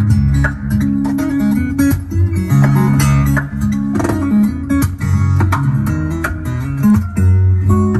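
Plucked guitar music with a steady bass line, played back through a car's stock paper-cone speakers with no tweeters or subwoofer fitted.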